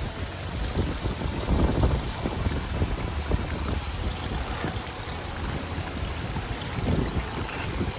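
Rushing water of a mountain stream, a steady noise with a low, uneven rumble underneath that swells about two seconds in and again near the end.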